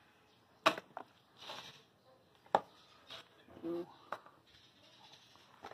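Sharp knocks and clinks of kitchenware: a plastic food container and stainless steel dog bowls knocking together as food is portioned out. The two loudest knocks come about two seconds apart, with lighter clinks between.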